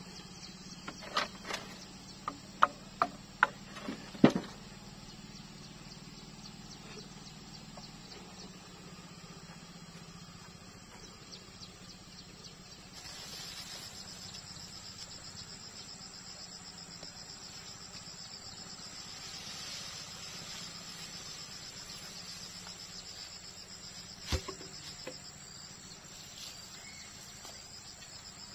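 About seven sharp knocks in the first few seconds, loudest near the fourth second. About halfway through, a steady, finely pulsing high-pitched insect chirring sets in and continues, with one more sharp knock near the end.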